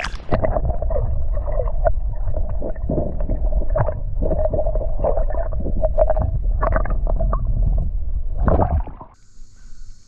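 Creek water heard through a microphone held under the surface: a loud muffled rumble and gurgling with scattered knocks, cutting off suddenly about nine seconds in.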